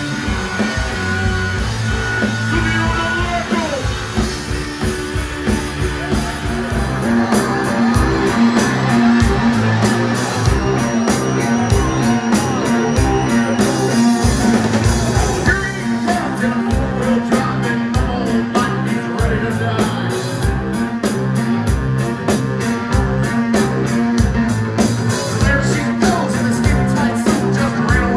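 Live rock band playing a song: drums, bass and electric guitar with a singer. The beat fills out and gets a little louder about seven seconds in.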